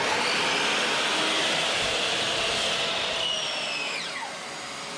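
Makita 216 mm mitre saw and the Ryobi wet/dry shop vacuum hooked up to it, running together with a steady rushing noise. About four seconds in a whine falls steeply as a motor winds down, and the noise begins to fade.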